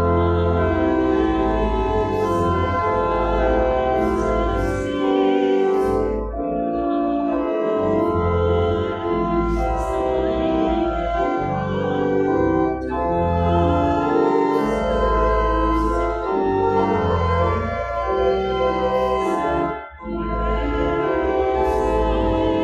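Church organ playing a hymn, with the congregation singing along. The music breaks off briefly between phrases.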